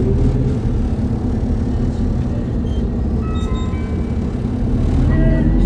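Running noise of an Isuzu Erga city bus (2DG-LV290N2) inside the cabin: a steady diesel engine and drivetrain hum. A few brief faint high tones sound midway, and the noise grows louder near the end.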